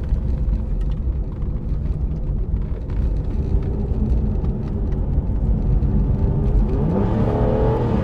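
Aston Martin DB9's 5.9-litre V12 running as the car drives along, with a steady low rumble of engine and road noise. Near the end the engine note climbs as the car accelerates.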